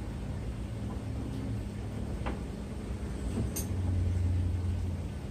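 A few light metal clicks as a new CV axle is worked into the front wheel hub, over a steady low hum, with a louder low rumble for about a second near the end.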